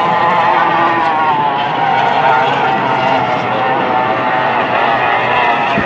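Formula 1 racing powerboat's outboard engine running at high revs: a steady, high engine whine that wavers slightly in pitch.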